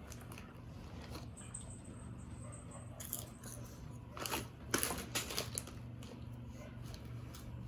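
Snack eating: a few short crunches and crinkles about three seconds in and again between four and five and a half seconds, over a steady low hum.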